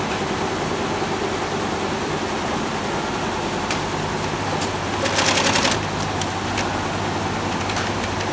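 Computer embroidery machines stitching, a steady fast mechanical chatter of needles. About five seconds in there is a brief louder rattle, and a few sharp clicks come around it.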